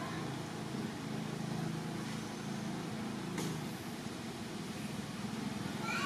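A steady low hum, with a single click about three and a half seconds in, and a baby long-tailed macaque's high squeaks right at the end.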